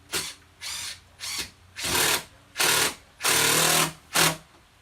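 Cordless impact driver with a Robertson bit driving a 2-inch wood screw through the chair's back upright into the arm. It runs in seven short bursts that grow louder, the longest about three seconds in, as the screw draws tight.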